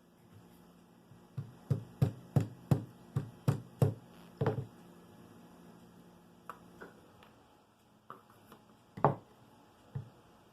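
Small wooden parts knocking together as snug dowel pegs are tapped into layered thin plywood pieces: a quick run of about ten sharp taps, then a few scattered clicks and one louder knock near the end.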